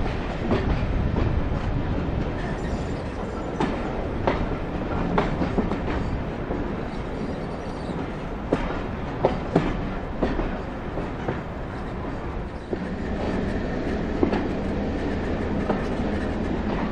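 Passenger train in motion, heard from on board: a steady rumble of the coaches with sharp, irregular wheel clicks over rail joints and pointwork.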